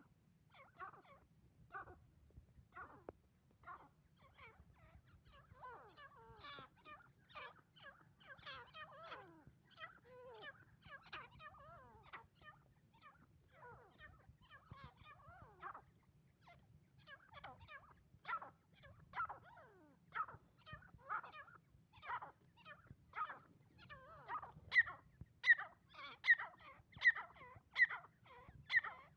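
Female francolin (teetar) calling with short notes repeated about once a second. The notes run into a busier chatter for a few seconds, then grow louder toward the end. A faint low hum runs underneath.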